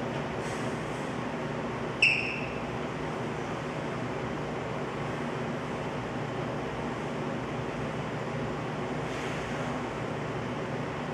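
A steady background hiss, broken about two seconds in by a single bright metallic clink from the Matrix functional trainer's cable and weight-stack hardware, which rings briefly and dies away. Fainter clicks come near the start and near the end.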